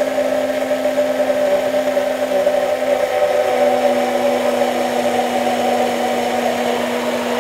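Moulinex immersion blender running steadily at one speed in a tall plastic beaker, emulsifying egg yolks with melted butter that is being poured in as the hollandaise thickens. An even, unchanging motor hum.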